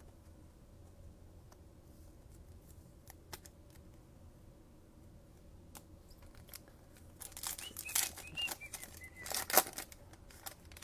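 Quiet at first with a few faint clicks, then about seven seconds in a few seconds of loud tearing and crinkling as a trading-card pack wrapper is ripped open.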